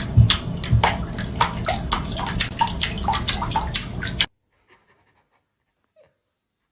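Water splashing and sloshing in a series of quick sharp splashes, cutting off suddenly about four seconds in, followed by near silence.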